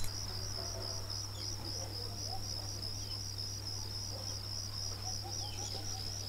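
Crickets chirping in a steady, evenly pulsing high trill over a low steady hum.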